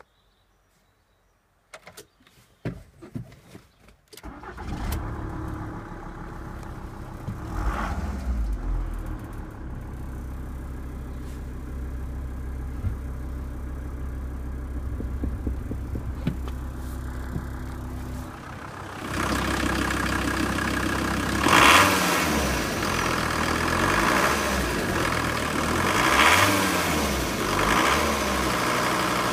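Volkswagen Transporter T4 2.5 TDI five-cylinder turbo diesel cold-starting: a few clicks, then it cranks and catches about four seconds in and settles to a steady idle. About two-thirds of the way through it is heard from the open engine bay, louder, and it is revved briefly three times.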